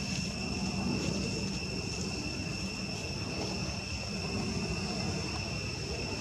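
Outdoor ambience: a steady, high, even insect drone over a continuous low rumble.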